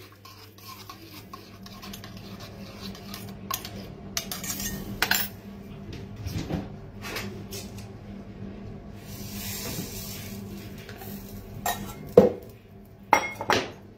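Kitchen clatter: a metal spoon clinking in a small stainless-steel pot, then scattered clinks and knocks of dishes and utensils, the loudest near the end. A low steady hum runs underneath.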